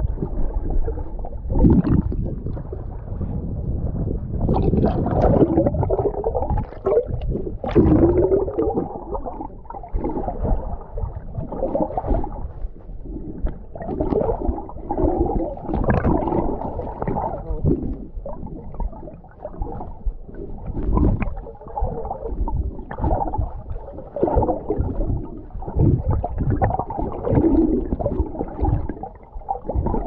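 Muffled sloshing and gurgling of sea water, heard dull and bass-heavy as if the microphone is at or under the water surface, rising and falling irregularly.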